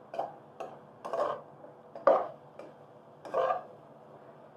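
Spatula scraping and knocking against a frying pan while stirring bitter gourd and scrambled egg, about six irregular strokes, as the egg finishes cooking.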